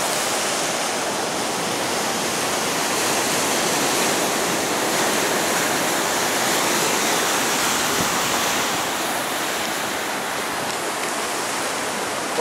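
Ocean surf washing steadily around a fishing pier: a continuous even hiss of moving water.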